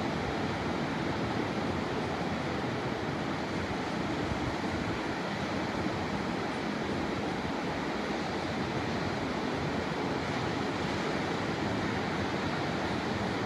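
Ocean surf washing onto the beach: a steady, even rush.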